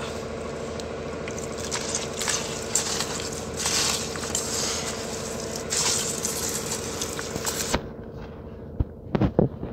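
Hands squelching and kneading wet cement mortar mixed with quarry dust in a steel bowl, with wet squishing and some scraping against the bowl; the mix has just had water added. A few sharp knocks near the end.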